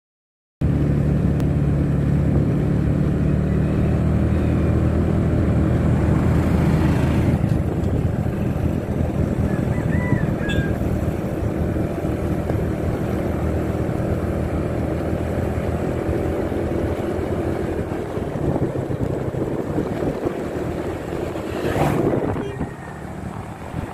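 Motorcycle engine running steadily while riding at cruising speed, with wind noise on the microphone; it starts abruptly about half a second in.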